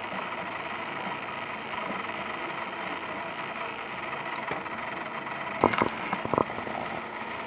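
Steady background hum and hiss, with a few short clicks or knocks about six seconds in.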